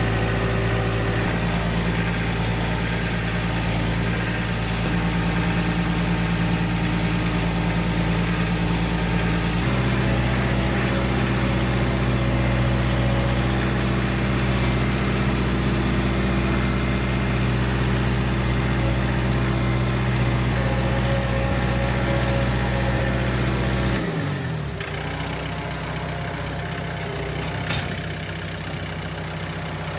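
John Deere 4044M compact tractor's diesel engine running steadily under way. Its speed steps up about a third of the way in, then falls back to a lower, quieter idle near the end.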